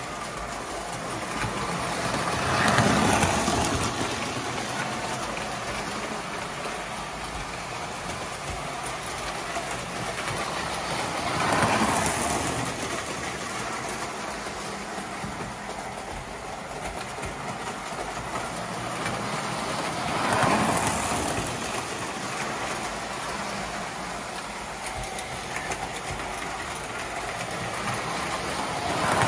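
Electric toy steam locomotive and its train running on metal track, a steady rolling clatter of wheels and motor that swells about every nine seconds as the train comes round the loop close by.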